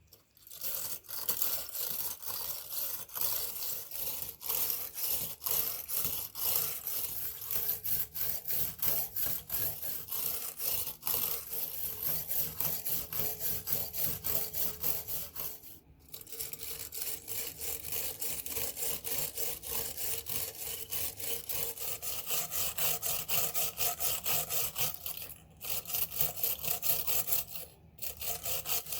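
A hand tool rasping in quick, regular back-and-forth strokes, several a second. The strokes stop briefly about halfway through and twice near the end.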